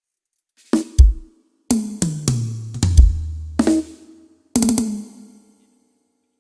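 Drum kit being sound-checked: single snare and bass drum hits, then a run of tom hits stepping down in pitch, and a quick cluster of hits near the end that rings out.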